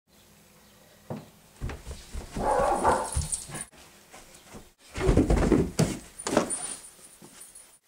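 A run of heavy thuds with high yelping cries, in two bursts split by an abrupt cut.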